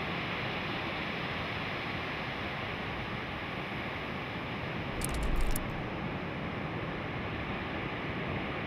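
Steady rush of surf and wind on a beach. About five seconds in comes one short thump with a few sharp clicks.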